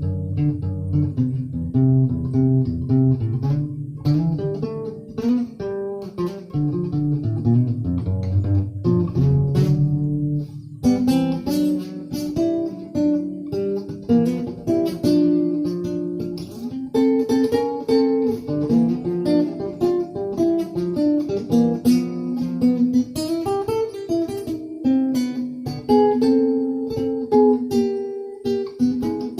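Guitar music: plucked and strummed guitar notes, with a bass line for the first ten seconds or so and a busier, higher passage after about eleven seconds.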